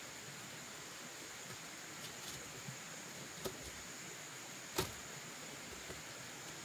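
Thin split-bamboo strips rustling and knocking lightly against a bamboo post as they are handled, with a sharper knock about three and a half seconds in and the loudest one near five seconds, over a steady high hiss.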